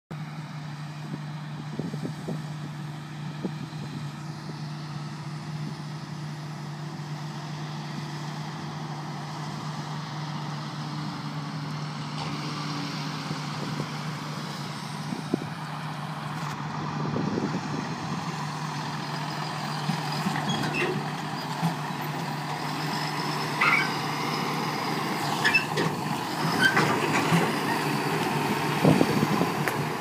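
John Deere W650 combine harvester running steadily at work. Over the second half, a tractor pulling an empty grain trailer draws close: its engine grows louder, and the trailer gives off knocks, rattles and short squeaks.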